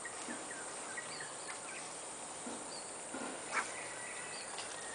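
Outdoor swamp ambience: a steady hiss with faint, scattered short animal chirps. A single sharp click about three and a half seconds in.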